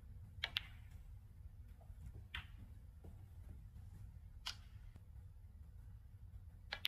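Snooker balls clicking as shots are played: a handful of sharp single clicks, a close pair near the start and near the end, over a low steady hum.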